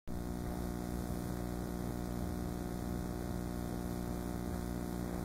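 Steady electrical mains hum with a buzzy edge, unchanging throughout.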